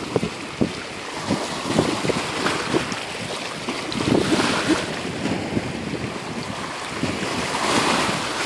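Wind buffeting the microphone over small waves lapping at the lake shore: a steady rush of noise broken by frequent irregular low thumps.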